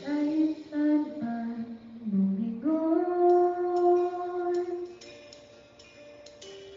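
A young woman sings into a handheld microphone, in phrases of drawn-out notes with one long held note in the middle. A quiet backing track carries on alone for the last couple of seconds.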